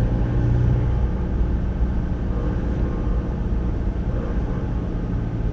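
Steady low rumble of a car driving: engine hum and tyre noise heard from inside the cabin.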